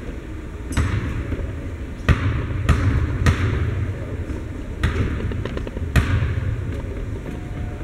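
A basketball bounced on a hardwood gym floor, about six thudding bounces at uneven spacing. They fit a free-throw shooter dribbling before the shot.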